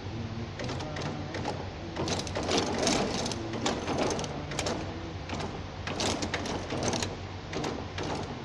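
Tea bag packing machinery clattering, with sharp mechanical clicks about two or three times a second over a steady hum. The clatter is loudest through the middle.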